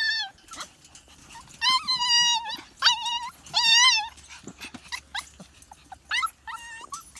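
Seven-week-old Siberian husky puppies whining and yipping: a string of high, wavering whines, the longest between about one and a half and four seconds in, with short yips and a couple more whines near the end.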